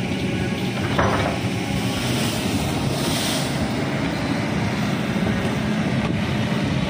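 Kobelco crawler excavator's diesel engine running steadily under work, with a single knock about a second in.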